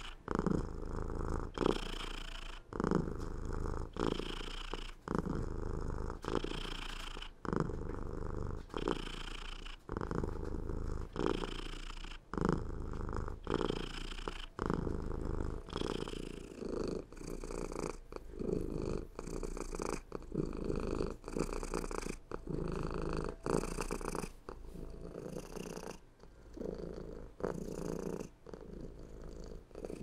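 Domestic cat purring close up, a continuous low rumble that swells and breaks with each breath, a new breath roughly every one to one and a half seconds.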